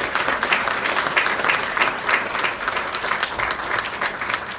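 A crowd of people applauding, dense overlapping hand claps.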